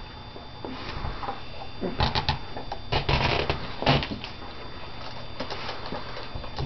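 Basset hound chewing and tearing at a stuffed toy: irregular crackling, rustling chewing noises.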